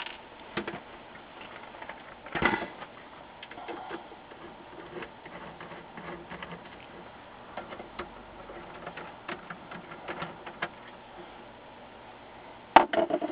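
Screwdriver backing small Phillips screws out of the metal frame of an LCD panel: scattered light ticks and scrapes of metal, with two louder knocks, one about two seconds in and a sharper one near the end.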